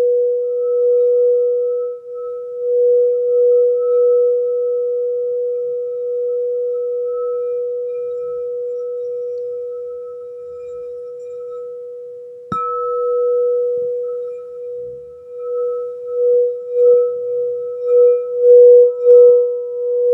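Frosted quartz crystal singing bowl played with a mallet at its rim: one steady pure tone with a fainter higher overtone, swelling and fading in slow waves. A little past halfway the mallet knocks the bowl once and the tone rings brighter; near the end the swells come louder and quicker.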